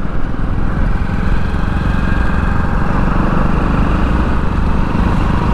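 Bajaj Platina 110 H-Gear motorcycle's single-cylinder four-stroke engine running steadily at cruising speed, heard from the rider's seat.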